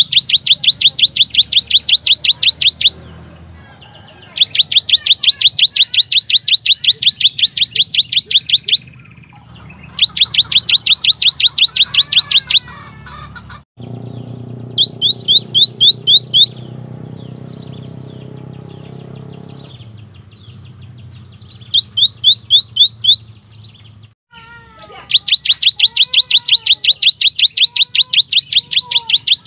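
Cinereous tit (gelatik batu) singing its long 'wucit-wucit' song: six bouts of rapid, evenly repeated high notes that each sweep upward, with short pauses between the bouts.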